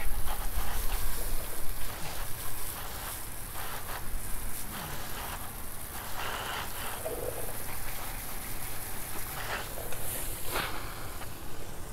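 Water jetting from a garden hose's fire-hose style nozzle and splashing onto an alloy wheel and tyre, a steady hiss and spatter, a little louder in the first couple of seconds, as the wheel cleaner is rinsed off.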